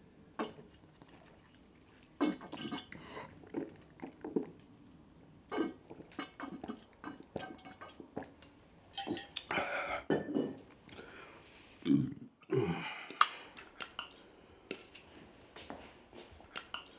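A hungry man eating and drinking: aluminium foil crinkling, chewing, and gulps from a glass bottle, in a run of short, irregular sounds.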